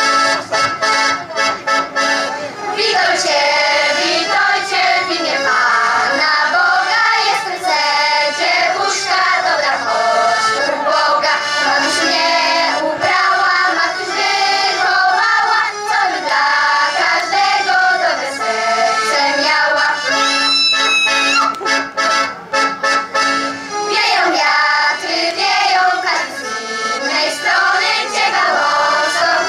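Children's and girls' folk ensemble singing a Polish folk-style greeting song together into stage microphones, amplified through the PA.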